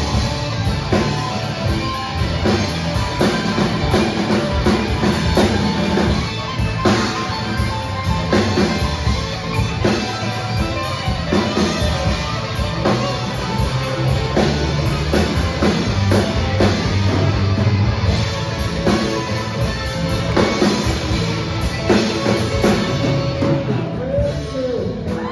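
Live rock band playing an instrumental passage: two electric guitars, bass guitar and drum kit, with no vocals.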